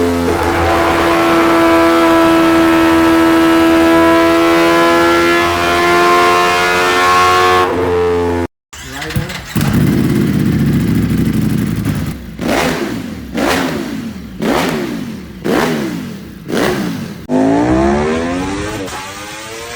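Superbike engine held at steady high revs. After an abrupt cut it revs up, then gives about six quick throttle blips in a row, each one rising and falling, and revs again near the end.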